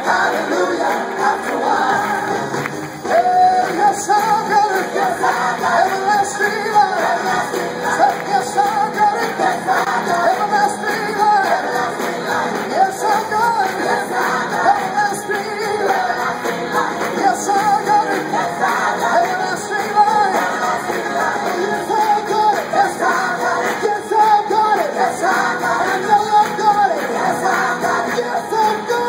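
Live gospel music: a group of singers with amplified band accompaniment, sung phrases running continuously.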